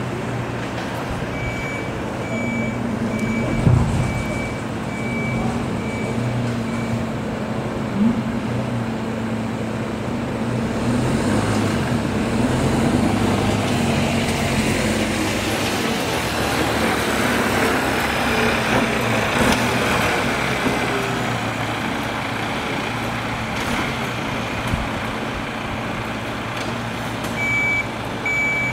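A vehicle's reversing alarm beeping about one and a half times a second over a running engine. The beeping stops after several seconds and starts again near the end, with a single low thump a few seconds in.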